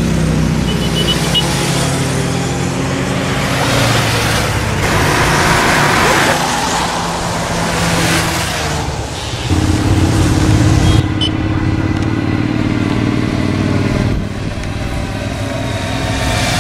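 Motorcycles riding past one after another, their engines running with a steady note, louder for a moment about ten seconds in and falling in pitch as one goes by near the end.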